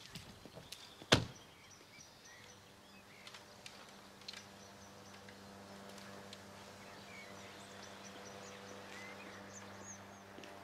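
A car door slams shut about a second in, the loudest sound. Faint bird chirps follow over a low steady hum.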